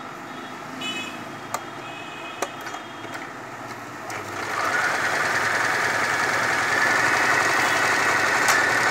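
A Butterfly JHQ3010 household electric sewing machine starts sewing about four seconds in and runs at a steady speed, stitching a straight seam at its shortest stitch length ('A'). A few light clicks come before it starts.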